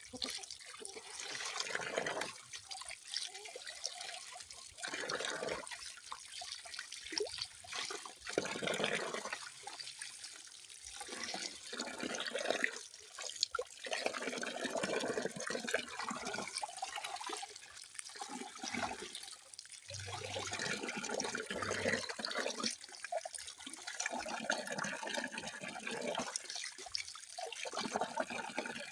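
Running water splashing and trickling, coming in uneven surges a second or two long with brief lulls between.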